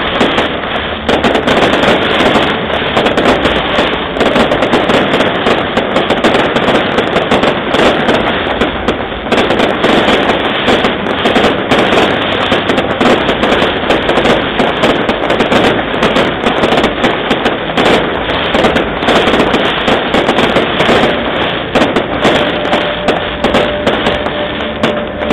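Fireworks display: a dense, continuous barrage of aerial shell bursts and crackling, with no pause between reports.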